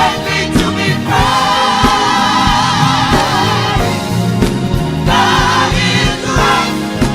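Gospel choir singing with a band, holding a long chord with vibrato from about a second in, then a second sung phrase over a steady drum beat.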